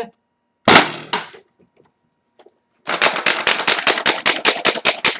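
A modified XXL Bazooka toy launcher fires a dart with a single loud blast of air less than a second in, dying away within about half a second. From about three seconds in, a fast, even run of sharp clicks follows, about six a second.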